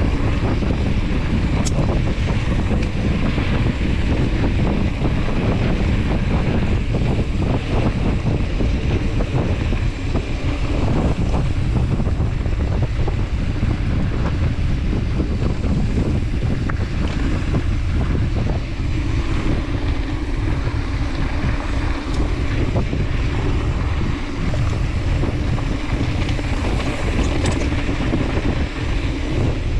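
Wind rumbling on the microphone and mountain-bike tyres rolling fast over a dry dirt singletrack, with small clicks and rattles from the bike throughout.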